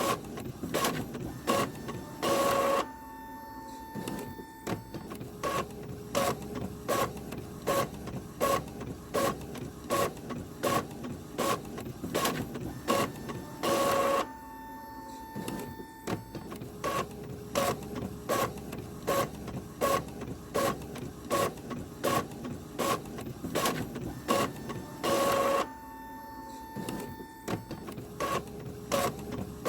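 Printer running and feeding paper: regular mechanical clicks about two a second, with a longer, louder burst of paper-feed noise about every eleven seconds, each followed by a short steady hum.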